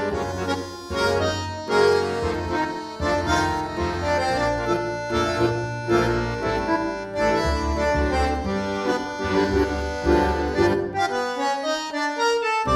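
Background music of held reed-instrument chords over a bass line, the notes changing about once a second.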